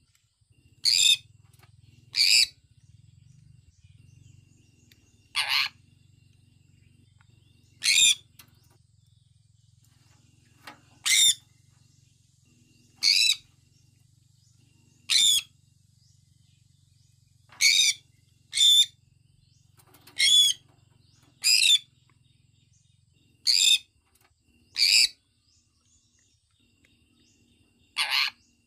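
Sun conure giving short, high-pitched screeching calls one at a time, about fourteen in all, spaced roughly one to three seconds apart.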